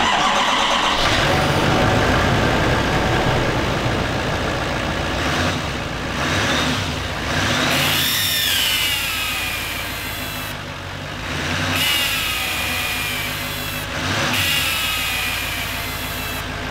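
2018 GMC Sierra 3500HD engine starting and running. Over it a whistle sweeps down in pitch several times. The whistle is air escaping past a poorly seated gasket at the EGR pipe flange, a boost leak that the owner puts down to a bent flange.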